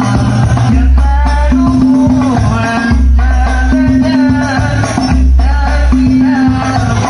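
Banjari hadrah ensemble: voices singing Arabic sholawat over rebana frame drums, with deep bass drum strokes about every two seconds.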